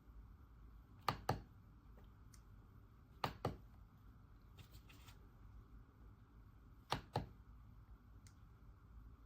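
RK Royal Kludge S98 mechanical keyboard with pale green tactile switches, keys struck one at a time: three crisp double clacks a couple of seconds apart, with a few fainter ticks between them.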